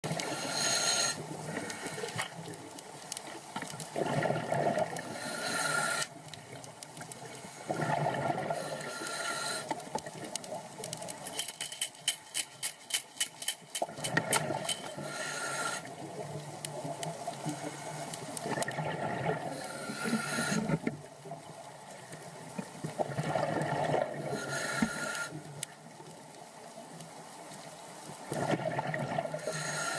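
Underwater scuba breathing through a regulator: a hissing inhale alternates with a bubbling exhale, repeating about every four to five seconds. A fast rattling run of clicks, about five a second, lasts around three seconds near the middle.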